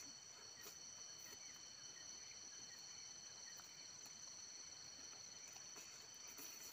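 Faint, steady high-pitched insect trilling, two continuous tones, one of them finely pulsing, with a few faint clicks over it.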